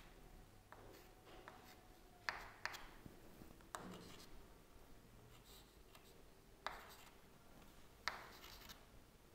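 Faint chalk on a chalkboard: short scrapes and a handful of sharp taps as the straight lines of a triangle are drawn.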